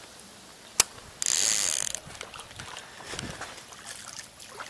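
A sharp click, then a fishing reel wound quickly for under a second, a loud, high-pitched mechanical whirr.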